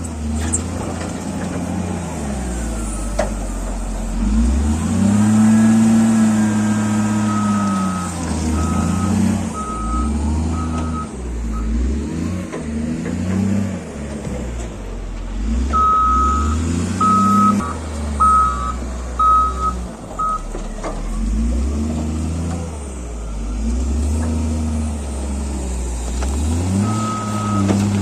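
Heavy earth-moving machine's engine rising and falling in revs as it works, with its reversing alarm beeping in spells of short beeps: about a third of the way in, again past the middle, and near the end.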